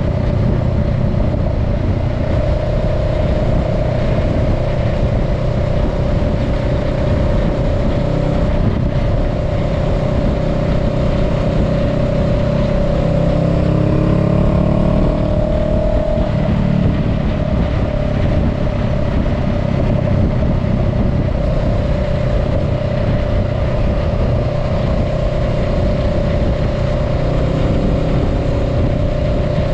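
Honda Rebel 500's parallel-twin engine running at steady cruising speed, heard from the saddle with wind and road noise. About halfway through, the engine note rises briefly, then settles back.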